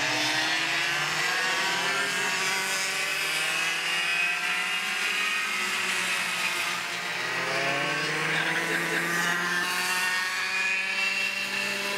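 Racing go-kart engine running at high revs, its pitch rising and falling repeatedly as the kart accelerates and slows through the corners.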